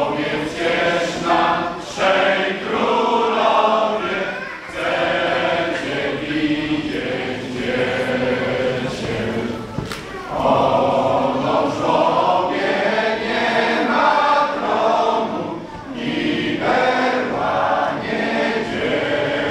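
Male voice choir singing a Polish Christmas carol (kolęda) in full harmony. The singing comes in phrases broken by short breaks about every five or six seconds.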